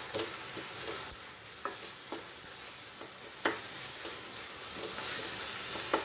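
Wooden spatula stirring and scraping an onion-tomato masala in a nonstick kadai while it sizzles, with a few sharp taps of the spatula against the pan. The ground spice powder is being fried into the masala.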